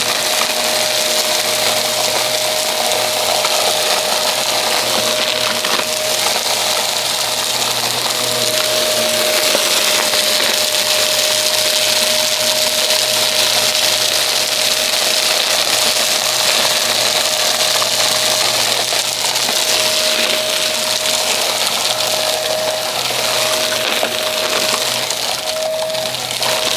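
Aspiron vacuum cleaner running with a steady high motor whine, sucking up crunchy debris that crackles and rattles through it.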